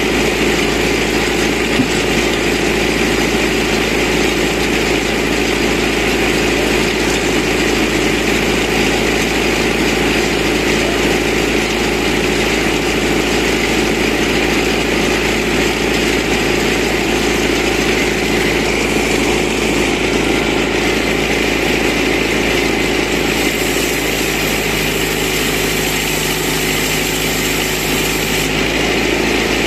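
Tractor-powered mobile band sawmill running steadily, the tractor engine driving the band blade as it cuts through a thick log. The tone shifts slightly about 23 seconds in.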